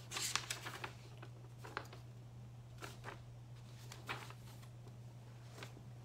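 Scattered light clicks and rustles, a quick cluster at the start and a few single ones after, over a steady low electrical hum.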